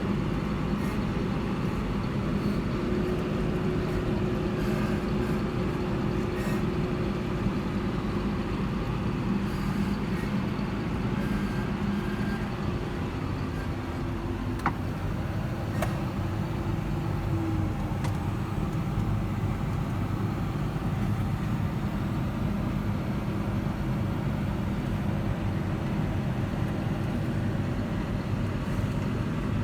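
Diesel engine of harvest farm machinery running steadily at constant speed, with two faint clicks about halfway through.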